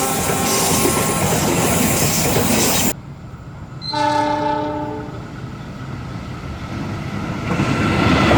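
A CC206 diesel locomotive passes close with loud wheel and running noise, its multi-tone horn chord dying away under it. After a sudden cut, a short horn blast of about a second sounds at a distance, then a train's noise builds up again.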